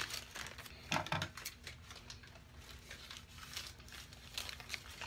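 Packaging and new bedding being unwrapped and handled: crinkling and rustling in irregular bursts, loudest about a second in.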